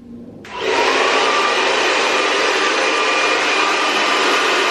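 Hand-held hair dryer switched on about half a second in, then running steadily: an even rush of blown air with a faint motor whine.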